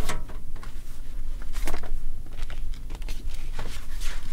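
Room tone: a steady low hum with scattered faint clicks and rustles.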